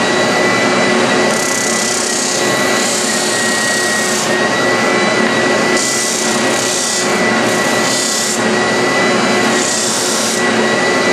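Spindle sander running with a steady high whine, the corners of a small wooden box pressed against the sanding drum in repeated short rasping passes.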